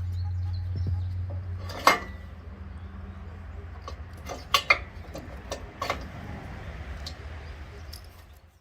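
Mini excavator's diesel engine running at a steady low hum, with a few sharp metallic clanks and knocks. The loudest clank comes about two seconds in, followed by a quick pair of clanks near the middle. The sound fades out just before the end.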